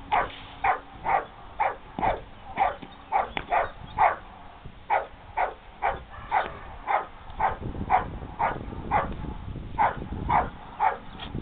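Australian Shepherd barking repeatedly and steadily, about two barks a second, while lunging on its leash at the helper during protection training.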